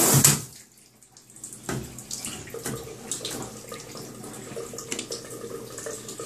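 Water spraying from a handheld shower head onto a wet dog in a bathtub, stopping abruptly about half a second in. Then quiet water dripping and trickling in the tub, with small scattered clicks and knocks.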